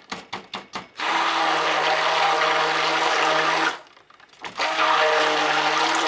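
Stick blender running in a pitcher of cold process soap batter, in two runs of a few seconds each with a short pause between. A quick series of short clicks comes in the first second.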